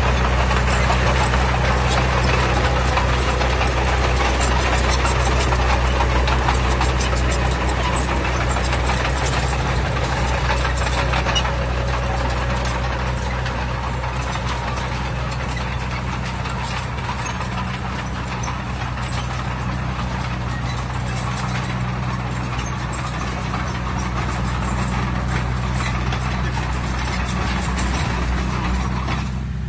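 Heavy diesel earthmoving machinery running steadily under work, a low steady engine hum with mechanical clatter over it; it eases off a little partway through and builds again.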